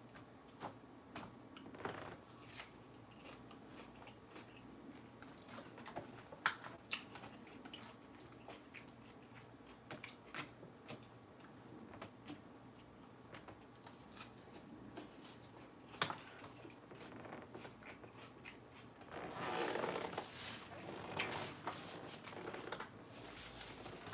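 Faint chewing of crisp lettuce: scattered sharp crunches, with a louder, denser stretch of crunching about twenty seconds in.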